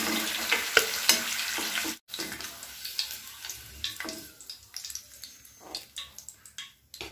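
Hot oil sizzling in a metal kadai as fried stuffed brinjals are lifted out with a metal spoon, with scattered clinks and scrapes of the spoon against the pan. The sizzle is fuller for the first two seconds, cuts out abruptly, then goes on more faintly.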